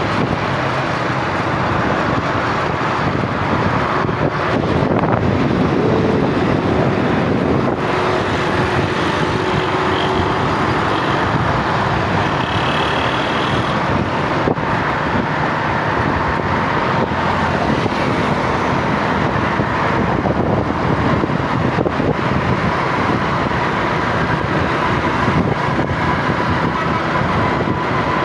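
Steady road-vehicle noise, a continuous rumble and hiss that runs on without a break.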